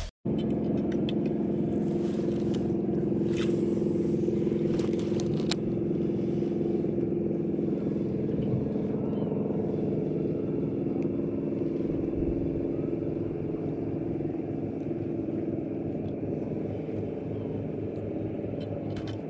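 A boat motor running steadily: a low hum made of several held tones that fades slightly towards the end, with a few light clicks in the first few seconds.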